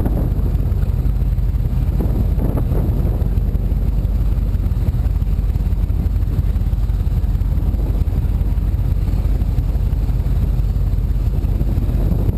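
Powerboat engine running steadily at slow harbour speed: an even, deep low rumble.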